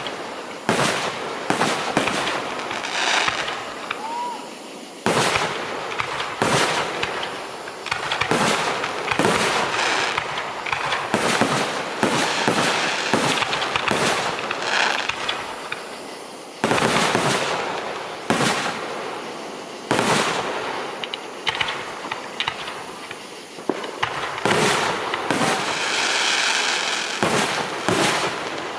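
Aerial fireworks in a finale barrage: shell bursts going off in rapid succession, often several a second, each bang trailing into echo and crackle.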